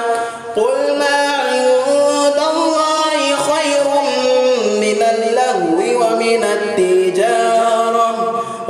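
A man chanting Quran recitation, drawing out long melodic notes that slide and waver in pitch, with a brief pause just after the start.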